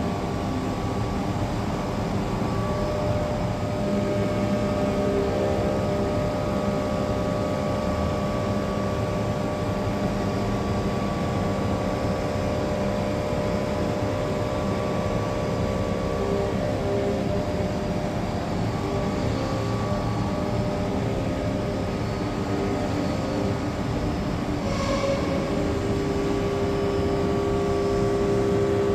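DMU 125 P hi-dyn five-axis CNC machining centre running a milling job on a casting pattern: a steady spindle and cutting noise with several held tones that shift now and then, and a brief click near the end.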